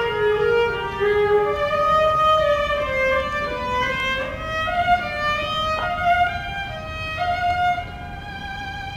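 Solo violin playing a slow melody of long held notes, sliding between some of them.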